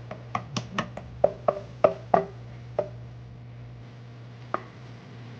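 A kitchen utensil clicking and knocking against a mixing bowl in quick succession while batter is mixed, then two single knocks. A steady low hum runs underneath.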